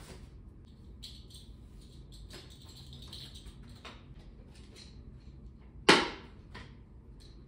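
Faint rustling and light clicks of small items being handled, with one sharp knock about six seconds in.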